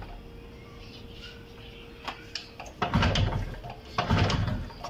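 Yamaha YB100's two-stroke single-cylinder engine being kick-started twice, about a second apart, turning over without firing. The plug lead held to the cylinder shows no spark, a sign that no current is coming through, which the rider thinks may be the magneto or the coil.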